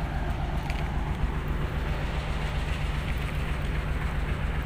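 Diesel-electric locomotive of a standing train idling, a steady low-pitched drone.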